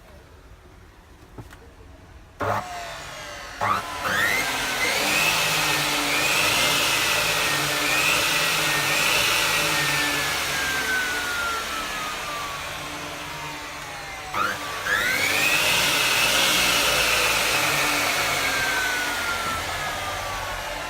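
Electric aluminium cutting saw with a 305 mm blade run twice. After a couple of clicks, the motor spins up each time with a quickly rising whine, then runs with a whine that slowly falls in pitch.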